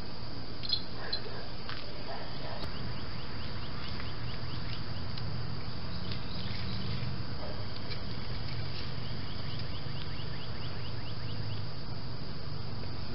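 Outdoor background: a steady low hum with two faint runs of rapid chirps, several a second.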